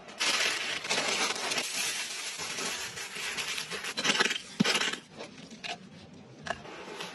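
A metal blade scraping and digging into dry, gritty soil: a crunching scrape with a few sharp knocks, which stops about five seconds in and leaves only faint rustling and small ticks.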